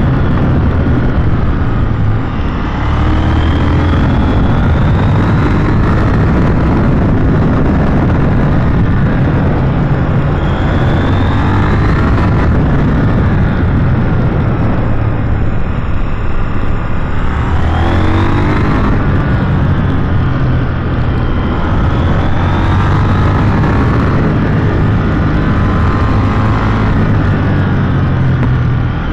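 KTM 890 Duke R's parallel-twin engine under way, its revs climbing several times and dropping back as the rider accelerates and eases off, over a steady rush of road and wind noise.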